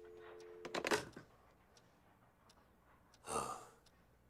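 Telephone dial tone, two steady tones together, cut off under a second in by a clatter as the receiver is hung up. About three seconds in comes a short, breathy sound.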